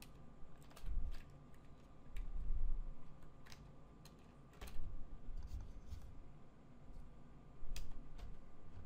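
Computer keyboard keys clicking in scattered, irregular strokes, with a few dull low thumps among them.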